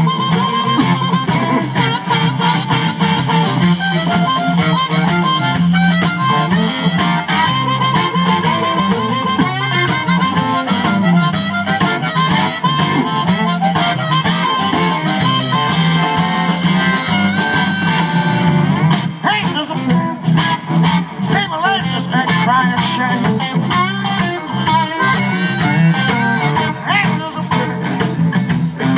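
Live electric blues band playing an instrumental passage: amplified harmonica leading over electric guitar and drums.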